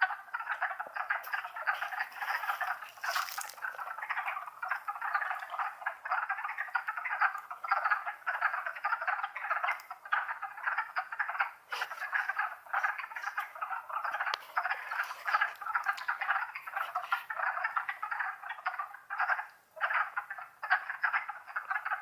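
Chorus of wood frogs: many frogs calling at once in a dense, continuous chatter of short calls, with a brief lull about three-quarters of the way through.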